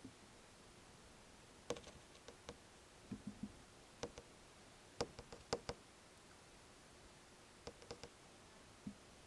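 Scattered light knocks and clicks in small clusters over a near-silent background, the loudest group about five seconds in, with a few duller taps about three seconds in.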